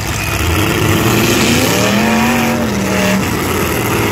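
Engines of demolition derby pickup trucks running and revving hard as the trucks push against each other. A single drawn-out tone rises and then falls about halfway through.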